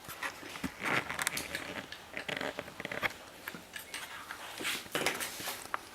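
Plastic Lego bricks of a small Lego vending machine clicking and rattling as it is handled and refilled by hand: a string of small clicks and knocks, with a brief scrape about a second in and again near the end.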